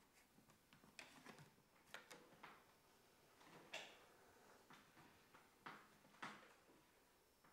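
Near silence with faint, irregular taps, creaks and rustles, roughly one or two a second, from two people dancing slowly barefoot on a wooden floor.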